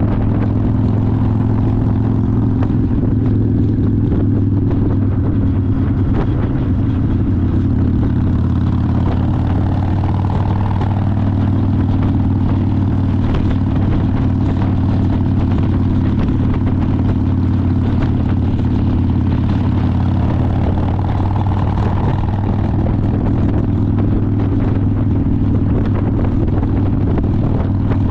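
Harley-Davidson motorcycle's V-twin engine running steadily at cruising speed, with no change in pitch.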